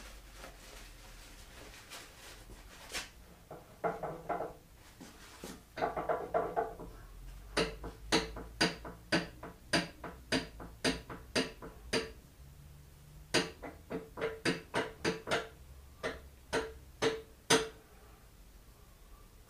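Sharp metallic taps on the tool and cutter grinder's seized gearing, about two a second in two runs with a pause between, each with a short ringing note from the metal, while the stuck parts are worked to free them. A brief scraping of metal comes before the taps.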